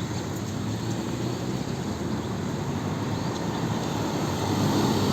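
Heavy rain and strong wind in a storm: a steady, low, noisy rumble that builds slightly near the end, mixed with vehicle noise.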